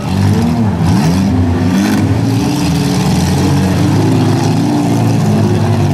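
Demolition derby cars' six-cylinder engines revving up and down again and again as they push against each other, several engines running loud at once.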